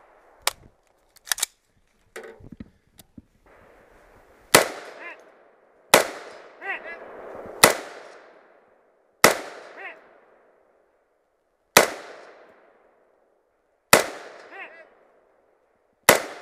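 Seven single rifle shots from an AR-style rifle, fired at a slow, aimed pace one every one and a half to two and a half seconds, each trailing off in an echo. A few small clicks and handling sounds come before the first shot.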